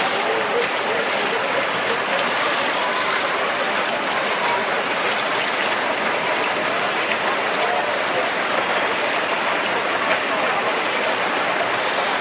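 Steady rushing, splashing water from swimmers stroking through a pool, an even hiss with no breaks.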